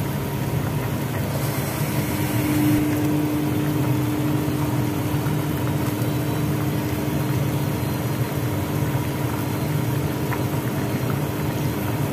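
Steady rumbling of a pot of vegetable soup at a full rolling boil on a gas burner, with a faint steady hum joining in about two seconds in.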